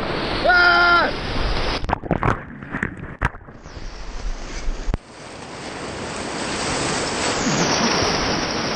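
Whitewater rapids rushing and splashing around a kayak, close to the water. There is a brief shout about half a second in, choppy splashing for a second or two after that, and then a steady rush of churning water.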